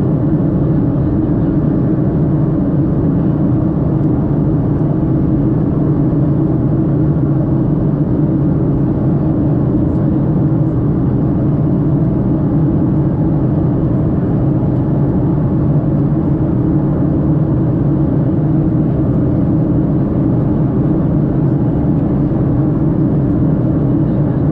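Jet airliner cabin noise in flight: the underwing turbofan engines and rushing air make a steady, low-pitched drone, heard from a window seat inside the cabin, unchanging throughout.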